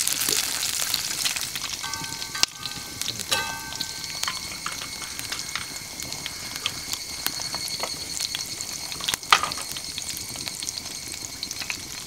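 Vegetables sizzling and frying in a paella pan over a wood fire, a crackly hiss full of small pops, with two sharp louder pops about two and a half and nine seconds in. From about four seconds on, a steady high ringing of evening cicadas (higurashi) sounds behind it.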